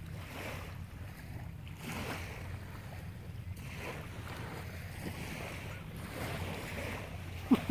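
Beach ambience: a steady low wash of gentle surf with wind on the microphone, swelling slightly now and then.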